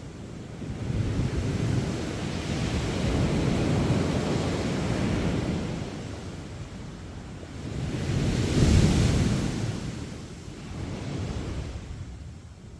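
Sea waves breaking on a sandy beach: the surf swells for several seconds and ebbs, and the loudest wave crashes about two thirds of the way in, with wind rumbling on the microphone.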